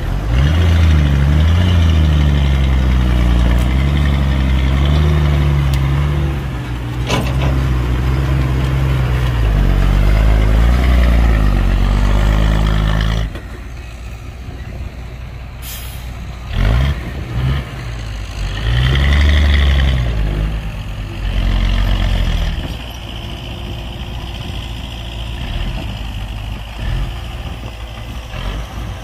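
Heavy diesel engine of dump-truck and excavator machinery running hard, its pitch wavering, for about the first half. It then drops to a lower running note with a few short revs. A short air-brake hiss comes about halfway through.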